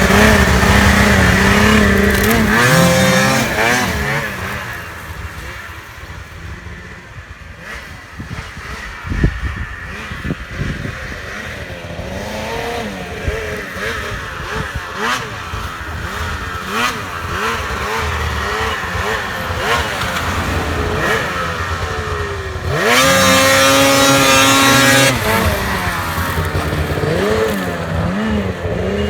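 Snowmobile engine running and revving, its pitch rising and falling as the throttle changes. It is loud at first, fades as the sled moves away, then comes back with a loud, high-revving stretch a little over twenty seconds in.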